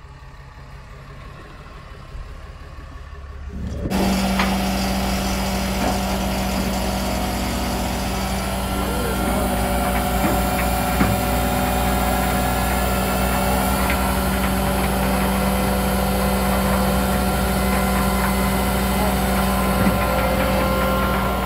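A vehicle engine running steadily: a quieter low rumble at first, then about four seconds in a much louder steady engine sound with a constant hum begins abruptly.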